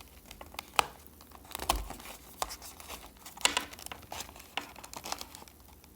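Product packaging being worked open by hand: crinkling and tearing with scattered small crackles and clicks.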